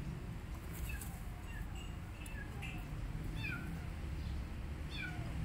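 Kittens mewing: a string of short, high, falling mews every half second or so, over a steady low background rumble.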